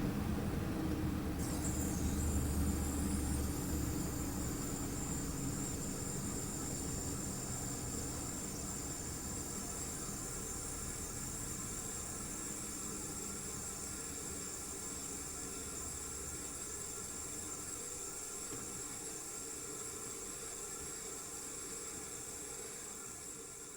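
Panasonic CU-227CF inverter air conditioner's single-rotary compressor running with its sound-deadening partly removed: a low hum with a steady high whine that comes in about a second and a half in, the whole slowly getting quieter.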